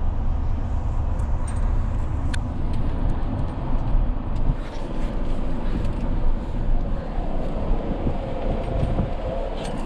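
Toyota Tundra TRD Pro driving, heard from inside the cab: a steady low road-and-engine rumble with a few light clicks and rattles scattered through.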